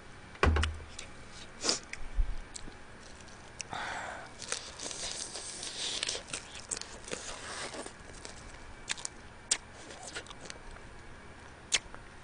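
Close-miked eating sounds of a person chewing and sucking meat from steamed blue crab, with many sharp wet clicks and crackles. A low thump about half a second in, and a denser stretch of sucking and slurping noise in the middle.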